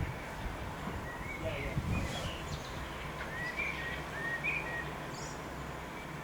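Birds chirping, a string of short calls through the middle, over a steady low rumble.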